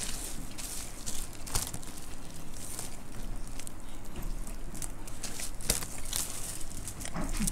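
Dry puffed rice (muri) being scooped by hand and chewed: a steady crisp crackling and crunching with scattered sharp crunches.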